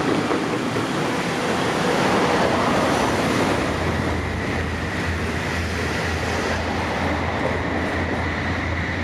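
Train on the JR Tokaido Main Line running by, a steady rushing rail noise, with a low hum setting in about four seconds in.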